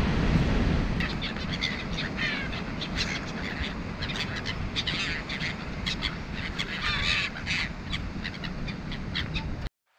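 Gulls calling over and over, many short cries overlapping, over a steady rush of surf and wind. The sound cuts off abruptly just before the end.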